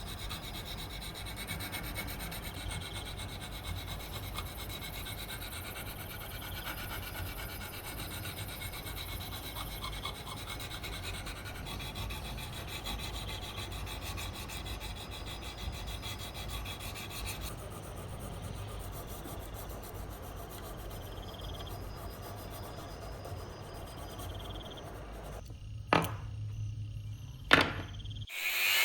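Steady rubbing scrape of hand abrasion on a rusty metal part, with two sharp knocks near the end.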